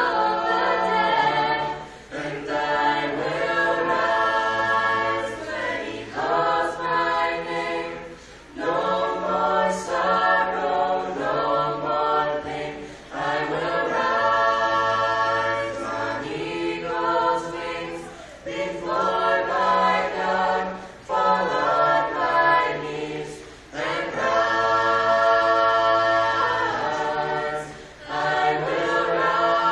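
Youth a cappella ensemble of mixed female and male voices singing in close harmony into handheld microphones. The singing comes in phrases of held chords, broken every few seconds by short pauses.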